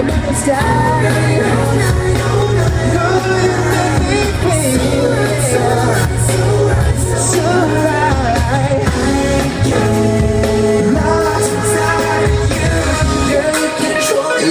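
Live pop R&B song played by a band and sung, heard from the audience: a steady bass line and beat with a singing voice over it. The bass drops out near the end.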